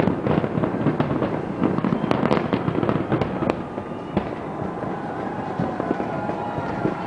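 Fireworks going off at a distance: dense crackling with many sharp bangs, thinning out after about four seconds.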